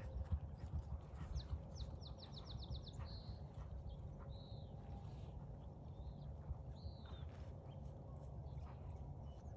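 Outdoor field ambience: a steady low wind rumble on the microphone, with birds calling over it. The bird calls include several short chirps and, about one and a half seconds in, a quick trill of about eight notes.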